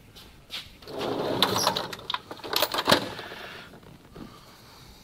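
Someone rummaging through a drawer of hand tools for a socket, metal tools clinking and rattling, loudest from about one to three seconds in.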